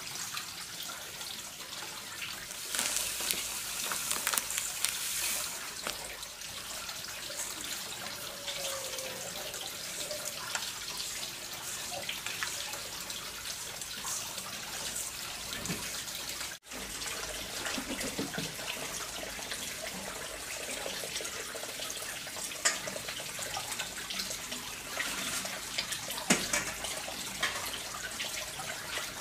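Running water splashing steadily, with scattered clinks and a couple of sharper knocks.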